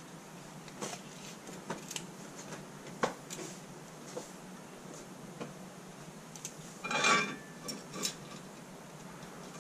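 Light clicks and taps of small steel parts and a hand tool being handled on a drill press table, with a louder ringing metal clink about seven seconds in.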